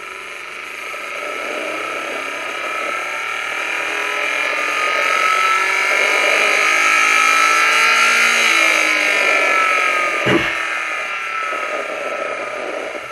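Knock-sensor signal from a turbocharged Nissan CA18 engine, recorded under load and played back through speakers: engine noise rising in pitch through the rev range to about eight seconds in, then falling, with a sharp click about ten seconds in. There is no knock in it; what is heard is the engine's background and valve-train noise.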